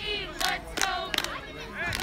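Spectators shouting and cheering at a youth football game, with a few sharp hand claps about half a second to a second in.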